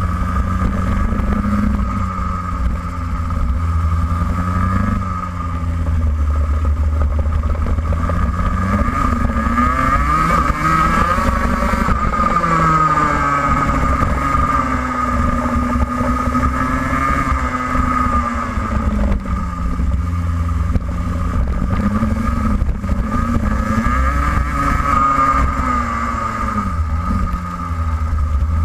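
Racing kart engine heard from on board at race speed, its pitch climbing steadily on the straights and dropping back as the driver lifts off for the corners, several times over, with a constant low rumble underneath.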